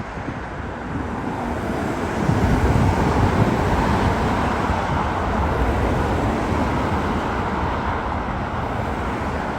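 Jet airliner engines at high thrust, heard as a steady rushing rumble that swells about two seconds in and then holds. This is typical of a heavy jet on its takeoff run or climb-out.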